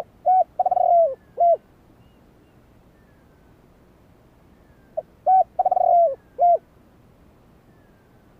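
Spotted dove cooing: two phrases about five seconds apart, each a short coo, a longer coo that drops at its end, and a short closing coo. Faint thin descending whistles from other birds sound behind it.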